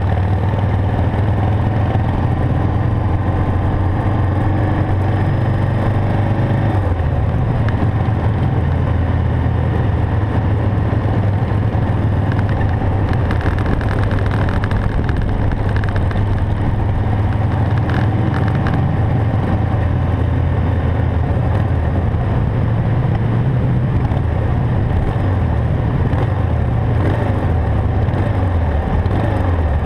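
Harley-Davidson Sportster XL883's air-cooled V-twin engine running steadily while riding along the road, with road and wind noise; the engine note changes about seven seconds in.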